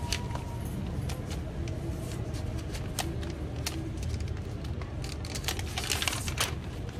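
Rustling and crinkling of the thin white protective wrap as it is peeled off a laptop: irregular crackles, busiest near the end, over a steady low rumble.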